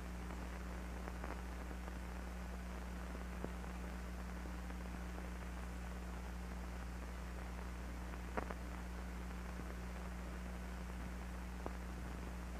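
Steady low hum and hiss of an old film soundtrack with no narration or music, broken by a few faint clicks and pops. The loudest pop comes about eight seconds in.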